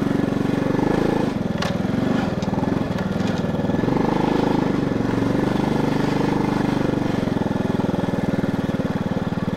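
Motorcycle engine running steadily as the bike rides along.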